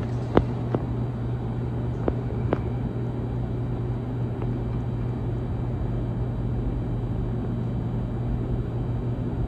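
Ceiling fan running on high speed: a steady motor hum under an even rush of air, with a few light clicks in the first three seconds.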